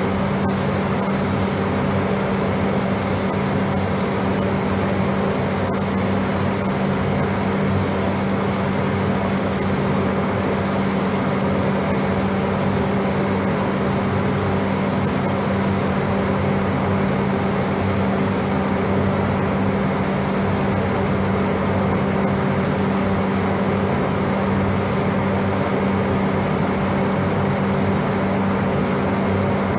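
Spray booth's ventilation fans running: a steady hum with a constant low tone under an even rush of air.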